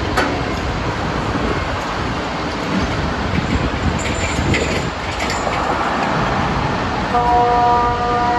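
A steady rushing noise, then about seven seconds in a KTG-10 siren starts a steady, even tone: one of the long continuous tones of the Swiss water-alarm signal.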